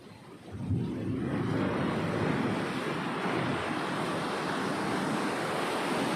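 Sea waves on a beach: after a brief lull, a wave breaks about a second in and its surf rushes on steadily.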